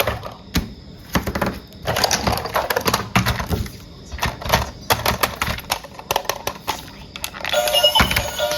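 Irregular quick clicks and clatter of hard plastic toy parts being handled, with music starting near the end.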